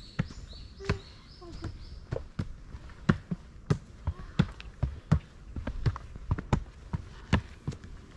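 Footsteps of a hiker jogging up a trail, about two heavy steps a second.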